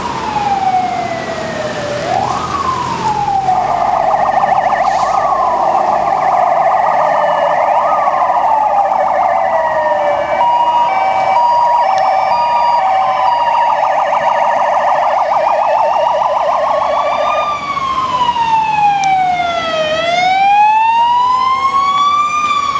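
Several police sirens sounding together as escort vehicles pass: overlapping rising and falling wails, then a fast yelp for much of the middle with a brief hi-lo two-tone over it. In the last few seconds one slow wail falls and rises again.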